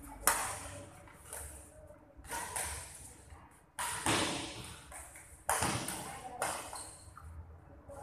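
Badminton rackets striking a shuttlecock in a rally, about five sharp smacks a second or two apart, each ringing on in a large hall.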